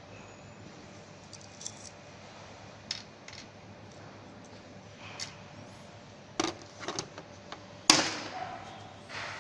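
Scattered clicks and small metallic clinks of hand tools being handled, with a cluster of knocks near the end and one sharp knock about eight seconds in.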